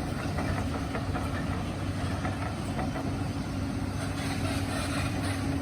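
Hyundai 220 excavator's diesel engine running steadily with an even hum.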